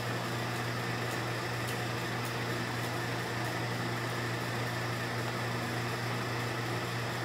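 Steady low hum of running room equipment, with faint ticks a little under twice a second for the first few seconds.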